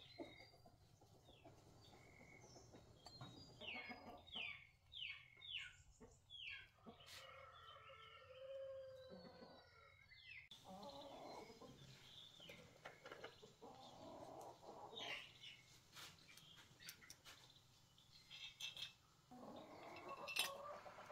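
Near silence, with faint bird calls in the background and scattered small clicks and taps from handling the metal parts of a small air compressor's pump head. A sharper tap near the end is the loudest sound.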